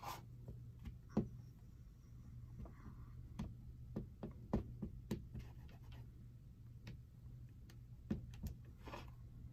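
Scattered light taps and clicks as a small rubber stamp is dabbed onto an ink pad and the pad's plastic case is handled, with a soft rustle near the end.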